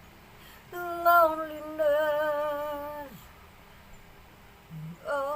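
A woman singing unaccompanied: one long sung note that starts just under a second in, steps gently downward and trails off about three seconds in, with the next phrase beginning near the end.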